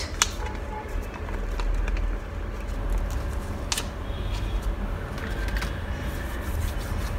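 Steady low rumble with a few faint crinkles from a sheet-mask foil sachet being handled and squeezed to get out the leftover serum.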